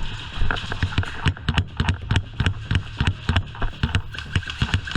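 Running footsteps and the rattle of gear, mixed with the sharp clacks of airsoft guns firing, several hits a second in an irregular clatter. Everything is muffled by the GoPro's clear waterproof case.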